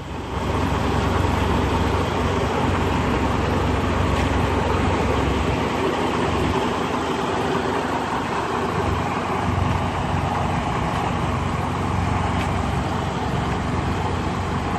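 Semi-truck diesel engine running steadily at low revs while the rig reverses slowly.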